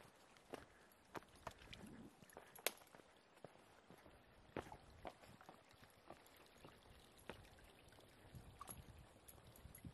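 Faint, irregular footsteps and knocks of a person and a small dog walking along a narrow wooden plank walkway, with one sharper knock a little under three seconds in.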